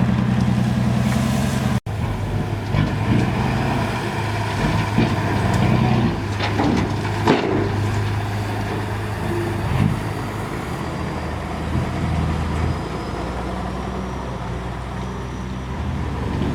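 Diesel engines of heavy machinery (backhoe loader and dump trucks) running, with scattered knocks and clanks. The sound drops out for an instant about two seconds in, then changes in character.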